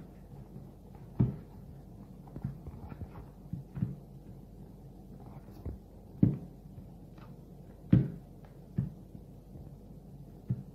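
Pizza dough being kneaded by hand in a plastic bowl: irregular dull thumps and soft squishes as the dough is pressed and folded, a few of them louder.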